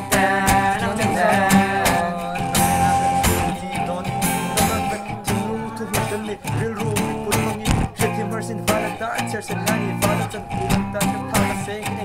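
Acoustic guitar strummed in a steady rhythm, with voices singing along at times.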